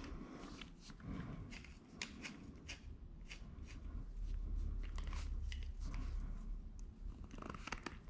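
Light metal clicks and scrapes from a hand rivnut tool and a thin aluminium bracket being handled and fitted, with a low rumble from about four seconds in to about seven.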